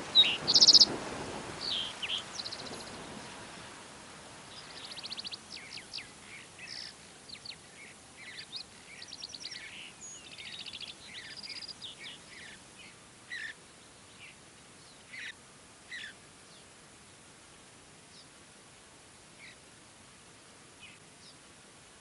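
Wild songbirds calling and singing. A few loud, sharp calls come in the first seconds, followed by a busy run of varied short trills and chips that thins out to scattered single notes.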